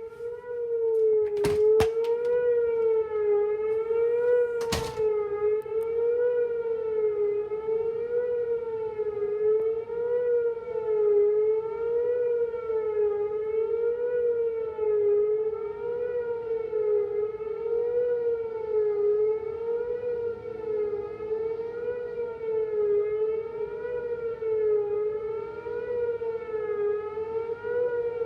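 Whelen outdoor warning siren sounding a steady tone whose pitch wavers gently up and down, a little under once a second: an odd sound during a signal test that the owner had never heard it make. Two sharp clicks come near the start.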